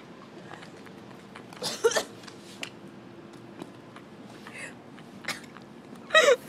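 A woman coughing from inhaled marijuana smoke: a short harsh burst about two seconds in and another near the end, with a few faint clicks between.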